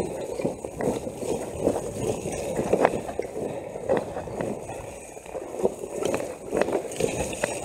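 Mountain bike riding down a rough, wet trail: a rumbling tyre noise broken by irregular knocks and rattles from the bike.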